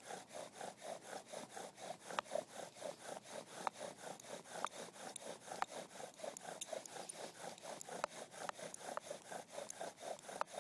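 Bow drill in fast use: the wooden spindle grinds in the hearth board with each stroke of the bow, an even back-and-forth rubbing at about four strokes a second with an occasional sharp click. The board is smoking, so this is the drilling that works up an ember.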